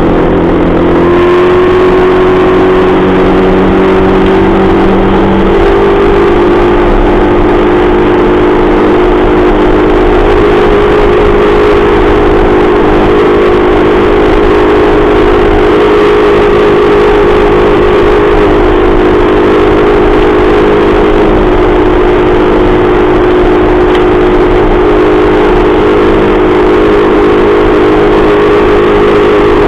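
40 hp Mercury outboard motor running at speed under steady throttle, with water rushing and spraying past its lower unit close by. The engine note climbs a little in the first few seconds, then holds steady.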